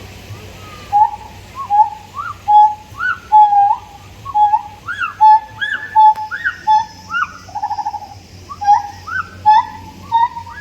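Siamangs calling: a run of loud whooping notes, each a short held tone that sweeps sharply upward, about two a second, with a quick rattling trill partway through.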